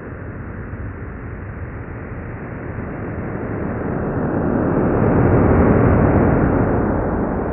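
Sonification of the Event Horizon Telescope image of the black hole Sagittarius A*: a low, hissing rumble that swells to its loudest about two-thirds of the way through, then eases. The rise and fall in volume follows differences in brightness around the black hole's event horizon as a radar-like sweep moves clockwise.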